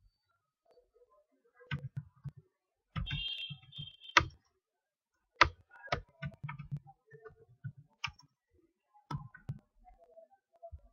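A computer mouse clicking on a desk: a handful of sharp clicks at irregular intervals, with dull low knocks between them.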